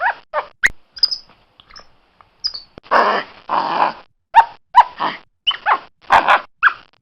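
Capuchin monkey calling: short harsh screechy calls mixed with quick squeaks that slide up and down in pitch, with a pause of about two seconds after the first second.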